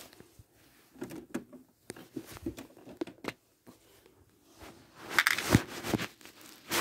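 Handling noise: rustling and light clicks as small plastic toys and the phone are moved about, with a louder rustle and a sharp click about five seconds in.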